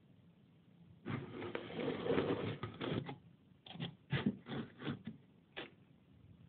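A mouse gnawing: about two seconds of rapid, scratchy rasping starting about a second in, then a run of short separate rasps.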